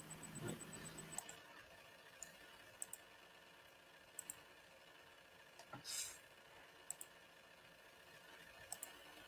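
Faint computer mouse clicks, several in quick double-click pairs, over near-silent room tone, with a soft rustle about six seconds in.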